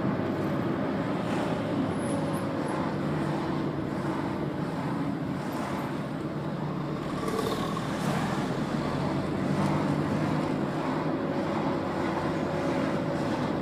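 Steady car engine and tyre noise heard from inside the cabin of a car driving along a town street.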